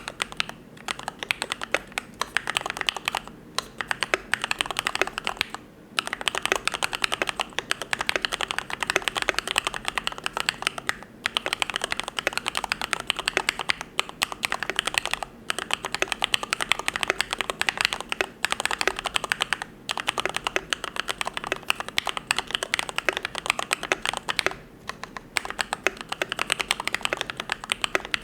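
Typing on a YMD75 V3 custom mechanical keyboard with lubed Gateron Yellow linear switches: fast, continuous keystrokes with a few short pauses.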